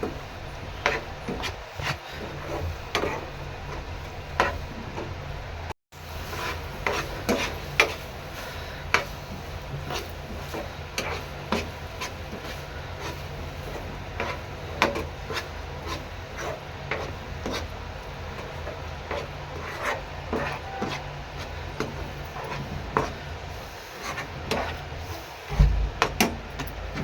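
A utensil scraping and stirring in a pan, with irregular knocks and clicks about once or twice a second over a steady low hum. The sound breaks off for an instant about six seconds in.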